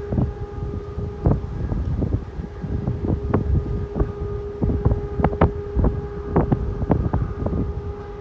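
Strong wind buffeting the microphone, a heavy rumble broken by many sharp thumps from gusts, over a steady humming tone.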